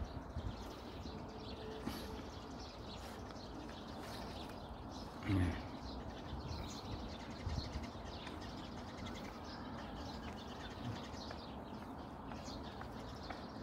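Sparrows chirping faintly, with one short, louder low sound about five seconds in.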